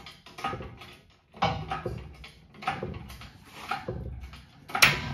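Engine hoist straining to lift a Chrysler 413 big-block V8 from its mounts: a run of short metallic clanks and creaks, about two a second. The owner takes these noises for the motor mounts coming off their studs.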